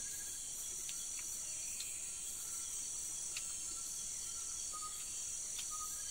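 Night insect chorus: crickets keep up a steady, high-pitched trill, with a few faint clicks over it.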